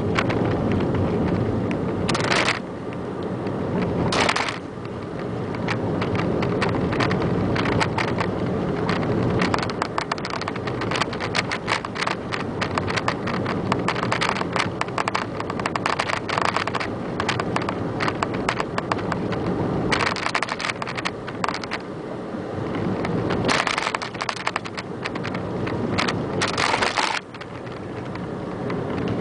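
A car driving along, heard from inside the cabin: a steady engine and road rumble with dense crackling tyre noise and a few brief louder rushes of noise.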